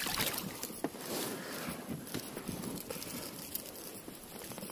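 Faint, scattered small clicks and rustles of fishing tackle being handled in a boat, over a quiet outdoor background.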